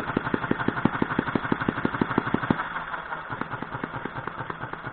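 Small homemade six-cycle model gas engine with a single finned cylinder, running with a sharp beat about six or seven times a second. It is running a little rough, which the builder puts down partly to the old microswitch used in place of ignition points. From about two and a half seconds in the beats grow fainter and less even as the fuel mixture is adjusted, perhaps the wrong way.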